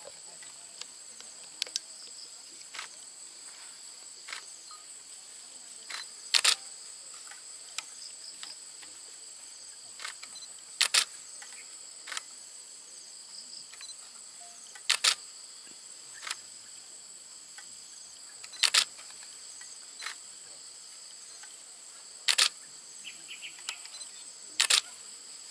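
Steady high-pitched insect chorus, crickets or cicadas, with a sharp double click about every four seconds, six loud ones in all.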